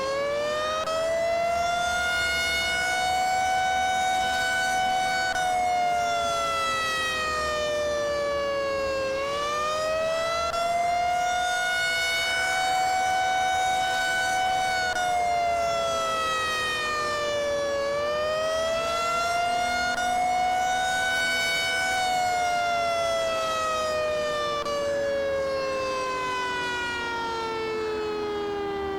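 Federal Signal 500AT outdoor warning siren sounding a wavering signal, typical of the attack alert: the pitch rises, holds for a few seconds and falls back partway, about every nine seconds. After the third rise it slides steadily down, winding down near the end.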